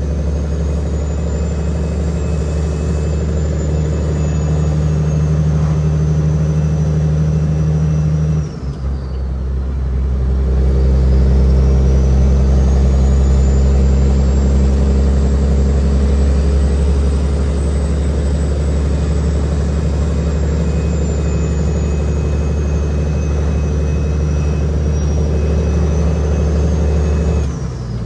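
Cat 6NZ inline-six diesel pulling a heavily loaded Kenworth W900L, with a high whistle that rises and falls with engine speed. About a third of the way in the engine note drops briefly, as in a gear change, then it pulls again; another brief drop comes near the end.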